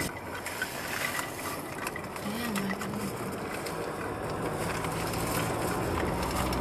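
Road and tyre noise of a moving car heard inside its cabin, with faint rattles and a brief wavering tone about two and a half seconds in.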